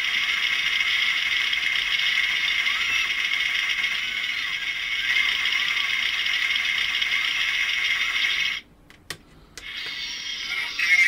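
Electronic sound effect from a NECA ED-209 figure's small built-in speaker: a steady mechanical rattling whir that cuts off suddenly about eight and a half seconds in. A single click follows, then another sound effect begins near the end.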